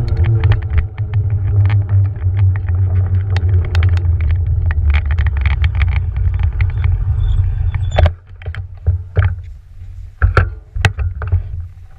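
Beaster BS11 electric scooter riding, heard from a GoPro mounted on it: a loud low rumble from the wheels and wind, with many rattling clicks and a faint falling motor whine fading out near the start. About eight seconds in the rumble stops abruptly as the scooter halts, leaving only a few scattered knocks.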